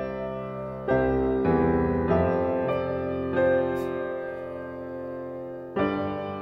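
Background piano music: slow, ringing notes and chords, a new one struck about every second and a half.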